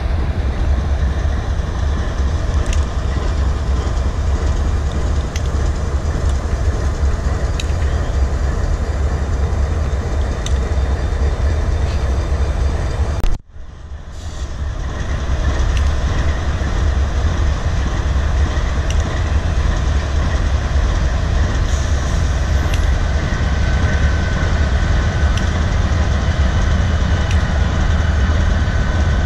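Diesel locomotives running, a steady low engine rumble throughout. The sound cuts out abruptly about halfway through and fades back in.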